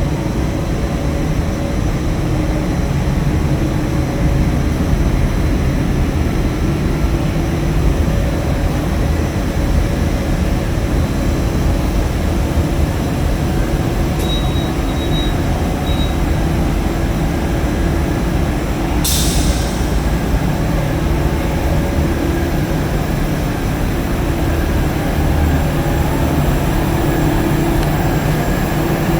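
Steady, loud industrial machinery noise from a running steam boiler and wet scrubber plant, a continuous hum with steady tones. A short high hiss cuts in about two-thirds of the way through.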